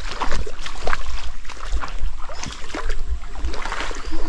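Footsteps wading through a shallow, stony creek: irregular splashes of water and knocks of stones underfoot, over a steady low rumble on the microphone.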